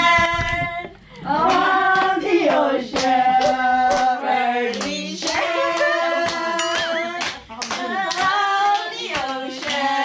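People singing a tune and clapping their hands in a steady rhythm.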